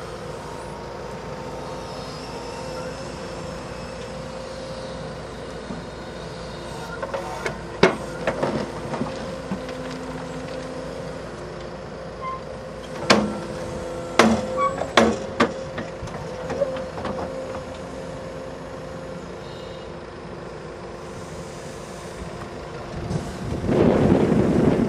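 Tracked excavator running steadily, its engine and hydraulics giving a constant hum with a held tone. Several sharp metal clanks come from the bucket and its tiltrotator, one about 8 seconds in and a cluster about 13 to 15 seconds in. A louder stretch of noise follows near the end.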